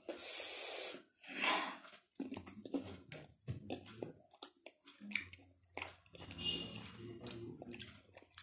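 A person eating spicy instant noodles and boiled pork fat by hand: two loud, airy sucking intakes in the first two seconds, then wet chewing with many small clicks and lip smacks.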